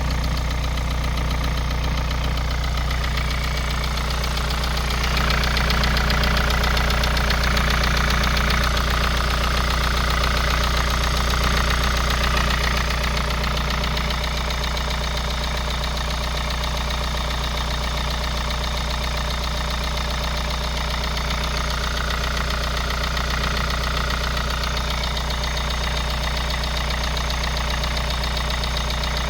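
Kia Sorento Prime 2.0 engine idling cold with a knock running through it, a little louder for several seconds about five seconds in.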